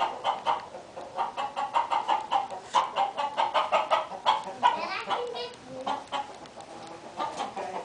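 Domestic hens clucking in quick, short, overlapping notes, with a longer drawn-out call about halfway through.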